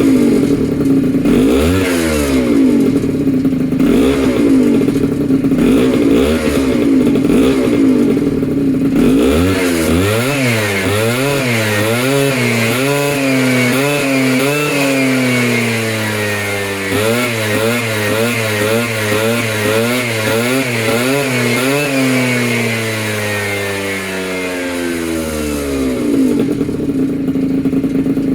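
Polini Corsa pocket bike's small two-stroke engine running after a rebuild. It idles with quick throttle blips, then revs up and down repeatedly for about fifteen seconds before settling back to a steady idle near the end.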